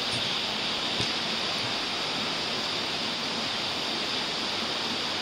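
Steady rushing noise with no other sound, and one faint click about a second in.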